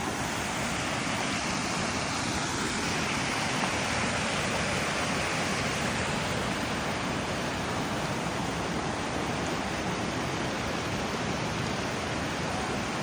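Waterfall rushing: a steady, even wash of falling water with no change in level.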